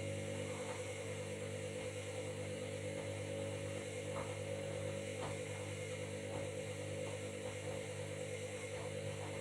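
Washing machine running: a steady electric motor hum with scattered faint clicks.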